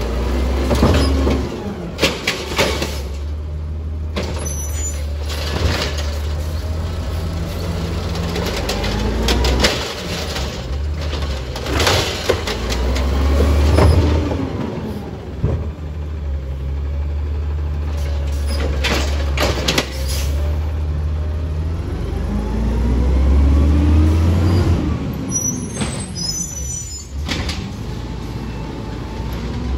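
Natural-gas (LNG) automated side-loader garbage truck working its route. The engine revs up and down several times as the hydraulic arm lifts, shakes and sets down yard-waste carts. Sharp clanks and knocks come from the carts and arm, and the air brakes hiss as the truck moves between stops.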